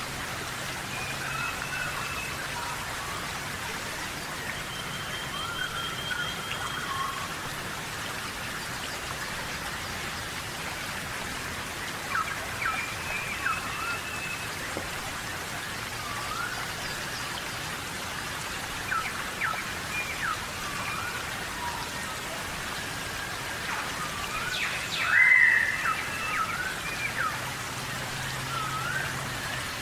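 Steady tropical rainforest rain hissing on foliage, with birds chirping and calling over it, one louder call late on.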